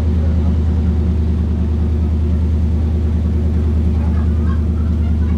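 Boat engine running steadily under way, a low even hum.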